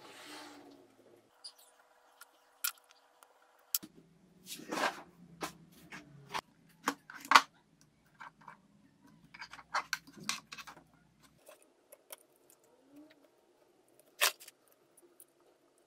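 Small hard objects being handled and set down: a scattered run of clicks, taps and light clatters, the sharpest about seven seconds in and again near the end.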